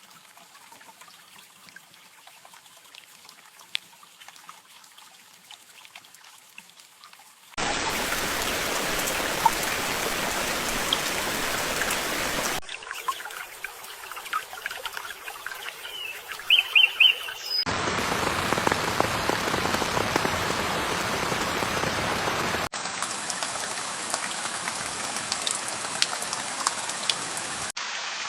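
Rain falling, in short recordings cut together abruptly. A faint hiss gives way about seven seconds in to heavy, steady rain. A quieter stretch follows, where a bird chirps a few quick notes, and then heavy rain comes back.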